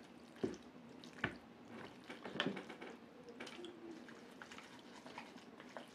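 Faint sounds of someone eating jjajangmyeon noodles with chopsticks, with a few small clicks of chopsticks against the dishes.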